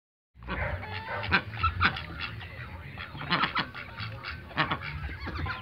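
Pet goose honking: a quick series of short, sharp honks, some in close pairs.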